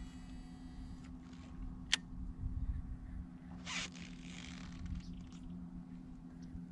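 Fishing rod and reel handled during a retrieve: one sharp click about two seconds in and a short scraping rustle nearly two seconds later, over a steady low hum.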